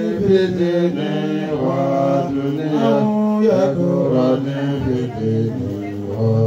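Men chanting Islamic devotional verses together through handheld microphones, in long, drawn-out held notes.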